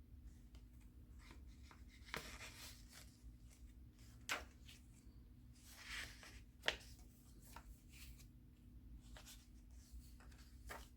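Paper pages and inserts of a handmade junk journal being handled and turned: faint rustling with a few sharper taps and clicks scattered through, and a longer swish about two seconds in.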